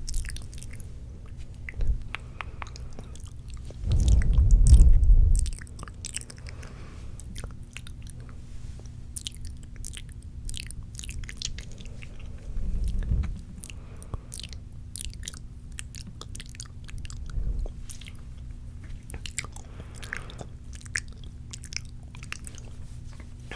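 Close-miked wet mouth sounds: many spitty clicks and smacks throughout. About four seconds in there is a louder, muffled low rumble lasting about a second and a half, and shorter ones come around 13 s in and near 17 s, as something touches the microphone.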